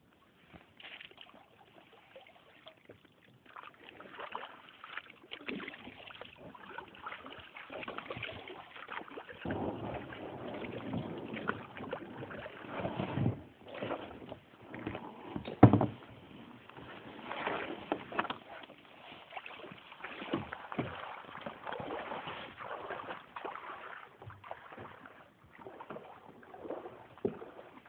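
Small boat being paddled through floodwater: uneven paddle strokes and water sloshing, with occasional knocks, the loudest a little past the middle.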